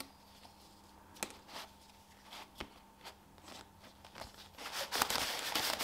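Cellophane wrapping of a gasket set crinkling as it is handled and opened: scattered single crackles at first, then a denser run of crinkling over the last second or so.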